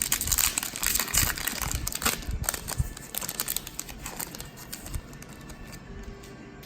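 Foil wrapper of a Magic: The Gathering Collector Booster pack being torn open and crinkled. The crackling is densest in the first two to three seconds, then thins to quieter rustles and clicks.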